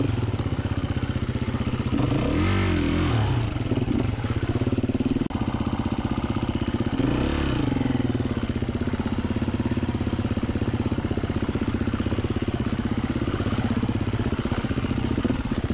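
Gas Gas 350 dirt bike's single-cylinder four-stroke engine running at low revs on a rough trail. It is revved up and back down twice, about two and a half seconds in and again about seven seconds in.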